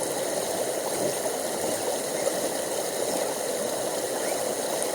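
Steady rushing of a brook's flowing water.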